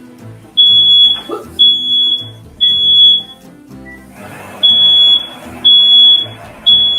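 Smoke alarm going off with loud, high-pitched beeps in the standard three-beep pattern: three beeps about a second apart, a short pause, then three more. It was set off by smoke from the frying pan.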